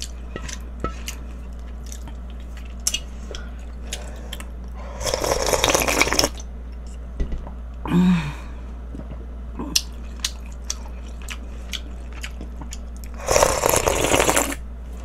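Close-miked eating: chewing jjamppong noodles and chewy wood ear mushroom, with small mouth clicks, over a steady low hum. Two longer slurps come about five seconds in and near the end, the second as broth is drunk straight from the pan.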